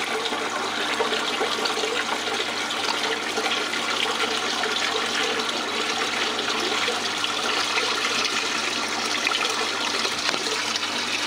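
Water running steadily across a miller table's sloped deck and pouring down its drain hole, with a steady low hum underneath.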